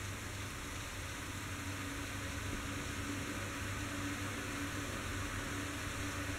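Steady rain falling on a street, an even hiss with a low hum underneath.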